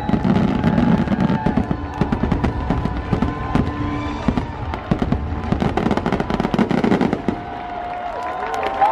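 Fireworks shells bursting and crackling in rapid succession over the show's music, the barrage thinning out about seven seconds in.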